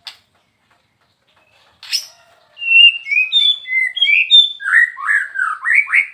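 White-rumped shama singing: a sharp single note about two seconds in, then a loud run of varied clear whistles, ending in quicker sweeping notes that go up and down, lower in pitch.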